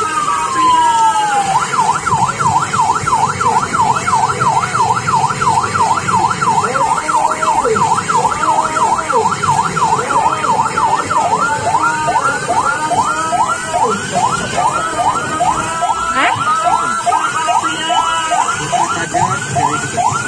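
Electronic fire-engine-style siren in a fast yelp, rising and falling about four times a second, changing about twelve seconds in to a choppier pattern of about two rising sweeps a second.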